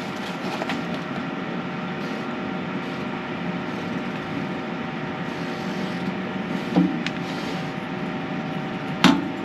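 Light clicks and handling noise from a small plastic Lewmar hatch fly-screen hinge clip being worked by hand, a few scattered clicks with the sharpest near the end, over a steady machine hum.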